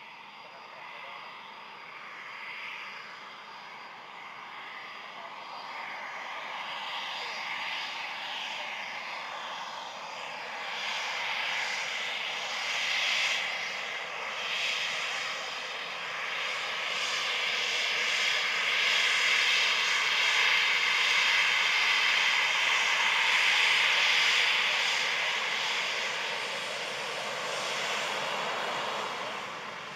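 The twin Eurojet EJ200 turbofans of a Eurofighter Typhoon taxiing on the runway: a steady jet whine and roar. It grows louder through the first two-thirds, peaks, and eases off near the end.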